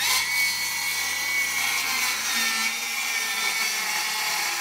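Cordless circular saw spinning up and cutting through plywood: a steady high-pitched whine with blade noise, sagging slightly in pitch as the blade works through the sheet.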